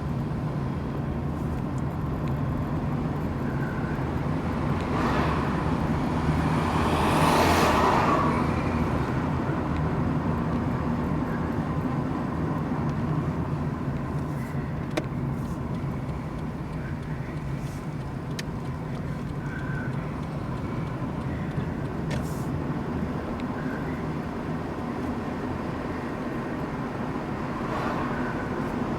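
A car being driven, heard from inside the cabin: a steady engine and tyre hum on the road. About six to eight seconds in, a louder rushing sound swells and fades.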